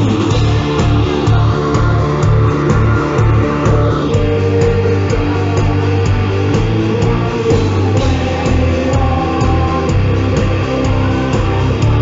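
A live heavy metal band playing loud through a concert PA, recorded from the crowd: distorted electric guitars and bass guitar over a steady drum beat.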